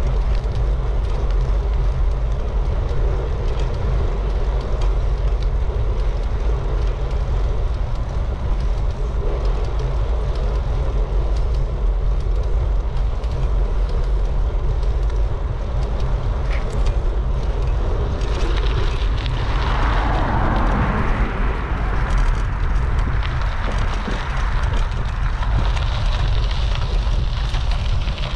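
Wind rumbling on a bike-mounted action camera's microphone while cycling, steady and loud, with a louder rushing swell about two-thirds of the way through.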